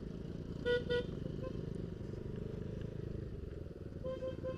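Motor scooter running with a steady low rumble. A horn gives two short toots about a second in, then a quick string of short beeps near the end.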